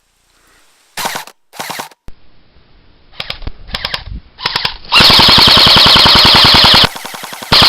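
Airsoft guns firing on full auto: a few short bursts, then a long rapid burst of about two seconds, the loudest part, and another burst starting near the end.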